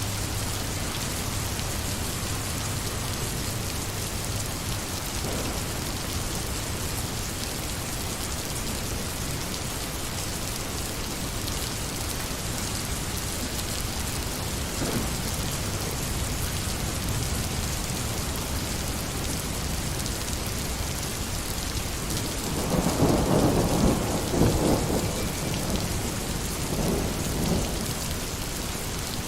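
Steady heavy rain falling, an even hiss throughout, with a low rumble of thunder rising about three-quarters of the way through and a smaller one shortly after.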